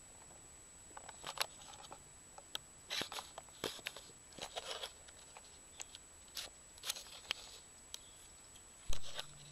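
Scattered light clicks and short rustling, crunching noises, irregular and unevenly spaced, with a dull thump near the end.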